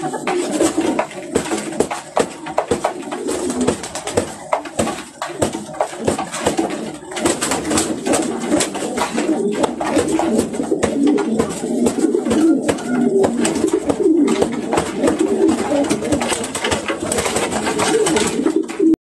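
Pigeons cooing continuously, with many sharp clicks and taps over the cooing. Near the end there is a flurry of wing-flapping.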